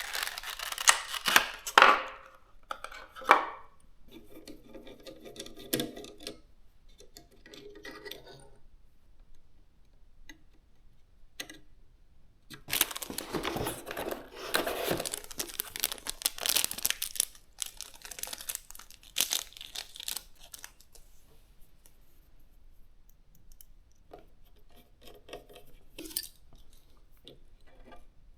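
Component packaging handled and opened by hand: rustling and tearing in uneven bursts, loudest near the start and again through a long stretch in the middle, with quieter handling and short pauses between.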